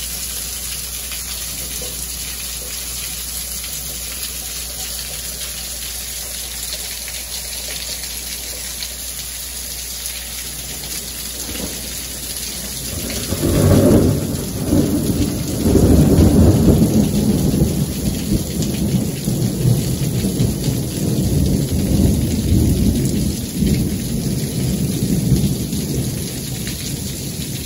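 Heavy rain pouring steadily, with runoff streaming off a roof edge. About halfway through, loud thunder rolls in, swells twice in quick succession, then keeps rumbling.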